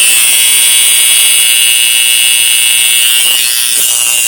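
Homemade 'water spark plug' chamber running, its arc glowing blue while air and water are fed through it: a loud, steady, high-pitched buzzing hiss. The builder takes the extra noise with water in the feed as a sign that a reaction is happening.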